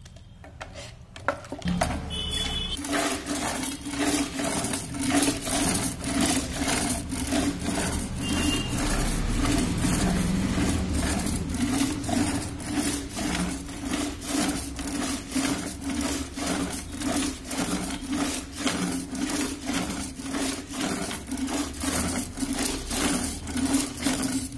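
Wooden rope-pulled butter churn (madhani) spinning back and forth in a clay pot of curd, making a steady, evenly repeating churning and wooden knocking that starts about a second and a half in. This is the traditional bilona churning of curd to bring out butter.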